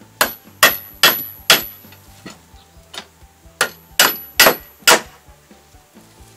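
Hammer blows on the wooden formwork: two runs of four sharp strikes, about two a second, each with a short metallic ring from steel hitting a nail.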